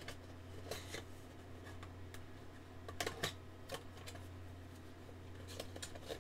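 Scattered light clicks and rustles of a phone's retail box and its accessory packaging being handled as the contents are taken out, a few in quick succession about three seconds in, over a low steady hum.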